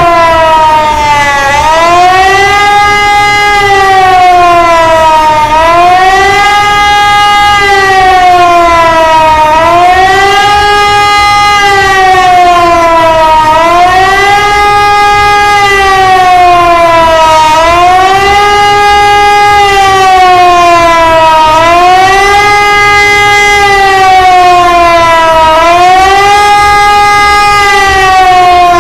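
A loud siren-like wail, one tone with a rich set of overtones. Its pitch climbs quickly, holds briefly, then sinks slowly, in an even cycle that repeats about every four seconds.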